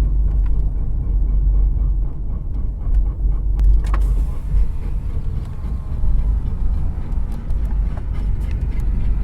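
Low, steady rumble inside a 2008 Subaru Outback on the move: road and running noise carrying the sound of a worn wheel bearing, which the driver takes for another bearing going out.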